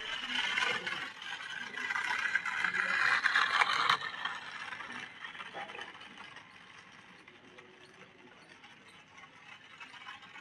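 A 1:24-scale toy RC car driving over rough concrete, its small electric motor whirring and plastic wheels rattling. It is louder for the first four seconds, then fainter.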